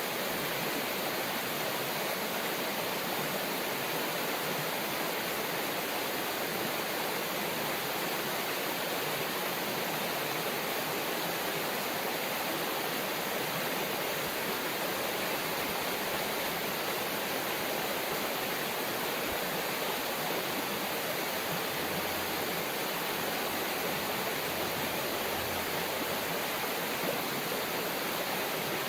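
River water flowing, a steady rushing hiss that does not change.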